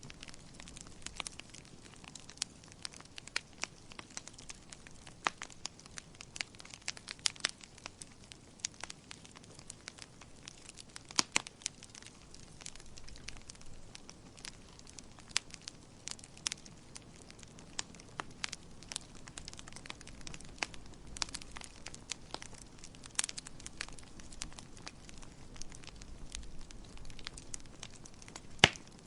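Wood fire crackling in a fireplace: irregular sharp pops and snaps, a few louder ones, over a faint low hiss of burning.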